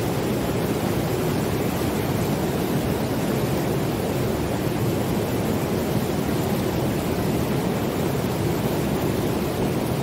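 Steady rush of fast-flowing river water pouring over rock rapids, loud and unbroken.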